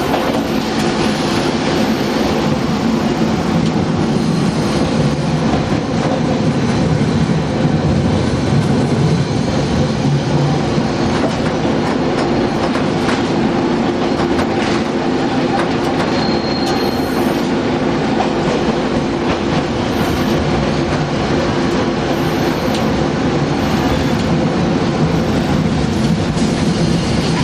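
Keifuku Electric Railroad Mobo 301-type tram running, heard from inside the car: the steady hum of its nose-suspended (tsurikake) traction motors and gearing over the click of wheels on rail joints. A brief high-pitched squeal comes about sixteen seconds in.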